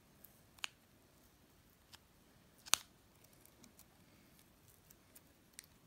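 Fingernails picking at and lifting the edge of a vinyl skin sticker off a phone's back, giving a few sparse, faint clicks and ticks; the sharpest comes a little before the middle.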